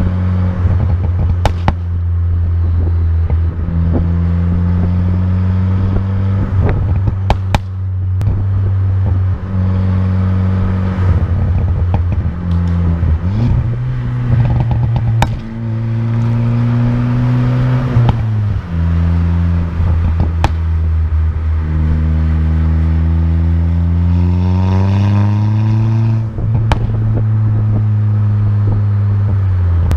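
Stage 3 Ford Fiesta ST's turbocharged four-cylinder running through a catless downpipe and a 3-inch MBRP catback with a Flowmaster muffler, on the move, its note rising and falling with throttle and gear changes and climbing in one long pull near the end. Several sharp pops and crackles from the exhaust on lift-off, the effect of a crackle-and-pop tune.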